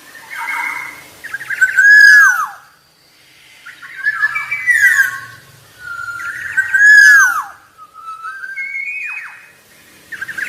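Black-naped oriole singing: clear, fluting whistled phrases repeated every second or two, with sliding notes. The two loudest phrases end in a falling whistle.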